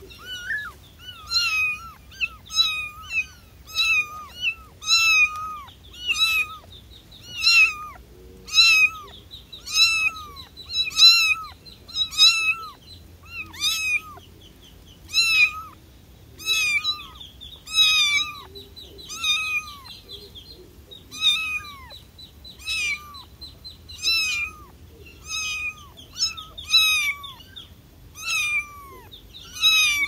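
A very young kitten meowing over and over, short high-pitched calls about one a second, each falling in pitch at the end: a newborn kitten calling for its mother.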